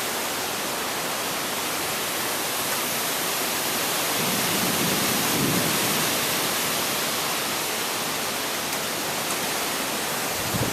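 Strong storm wind rushing steadily through trees, swelling slightly a few seconds in.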